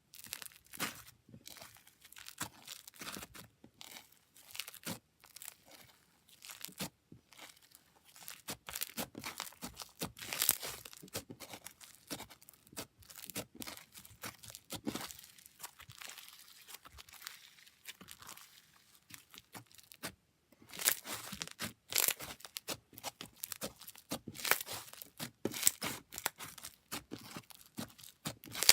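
Slime being played with by hand, squished and pressed, making dense, irregular crackling and popping sounds, with a brief pause about twenty seconds in.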